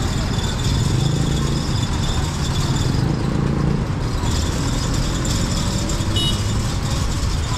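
Street traffic: vehicle engines running and passing with a steady rumble of road noise. A short high-pitched beep sounds about six seconds in.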